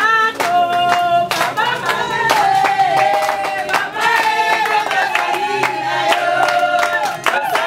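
A group of voices singing together in chorus, with hand clapping keeping a steady beat.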